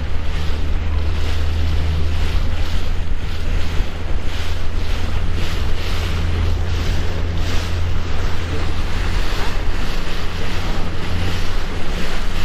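Motorboat under way across choppy lake water: heavy wind rumble on the microphone with water rushing past the hull. The bow slaps the small waves one or two times a second.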